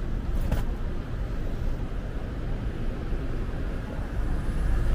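Steady low rumble of vehicle or traffic noise, with a short click about half a second in.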